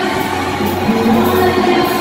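Loud dance music with singing, played over a sound system, with a steady beat.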